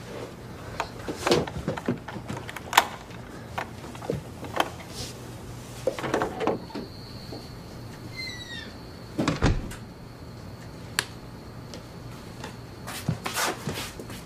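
Irregular knocks and clicks with a heavier thump about nine seconds in. A faint high steady tone comes in about halfway, and a short falling chirp sounds around eight seconds.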